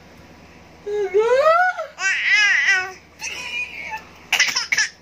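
A baby laughing and squealing in four bursts, starting with a long rising squeal about a second in, followed by quick pulsing giggles.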